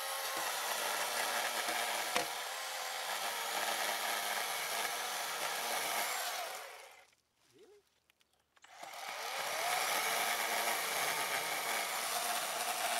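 Greenworks 40V brushless cordless chainsaw running under load as its chain cuts through a thick tree trunk, a steady electric motor and chain noise. About seven seconds in it stops for roughly two seconds, then spins back up with a rising whine and carries on cutting.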